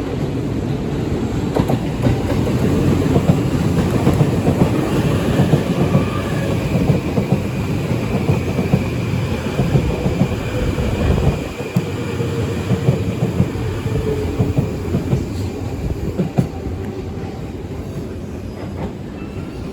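JR E257 series electric multiple unit running into a station, its wheels clacking over rail joints under a heavy low rumble. A faint high steady tone rides over it through the middle, and the rumble drops suddenly about halfway through and then eases as the train slows.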